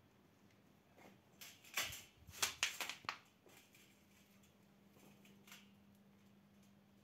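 A quick cluster of sharp clicks and knocks, the loudest about two and a half seconds in, then a few faint ticks, over a faint steady hum.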